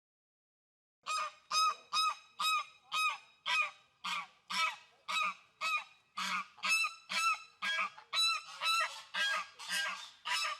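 Goose honking over and over, short nasal calls about two a second, starting about a second in after silence.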